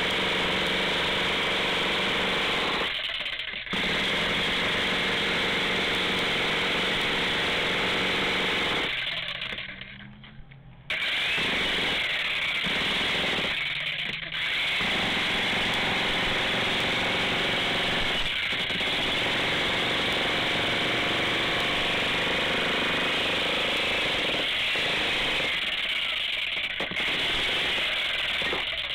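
Jackhammer breaking a concrete slab, hammering continuously and stopping briefly a few times, the longest break about ten seconds in.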